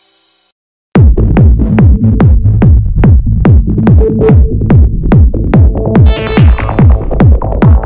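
Electronic dance music: after a brief silence, a steady kick-drum beat starts about a second in, about two beats a second, with synth tones over it.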